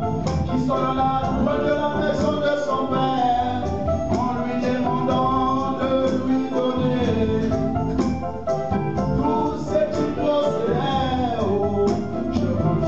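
A man sings a worship song into a microphone, accompanied by an electronic keyboard on an organ sound and a hand drum beating a steady rhythm.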